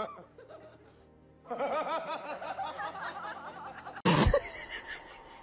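People laughing in a long run of short repeated bursts over background music, cut off by a short, loud burst of noise about four seconds in.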